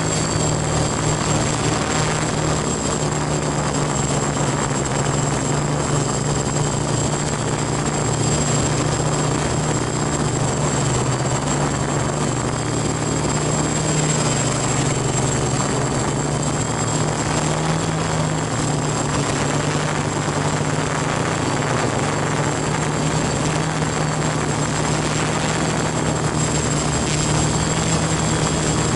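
F450 quadcopter's brushless motors and propellers running steadily in flight, heard from the camera mounted on the frame: a loud low buzzing hum with a thin high whine above it, the pitch shifting slightly as the throttle changes.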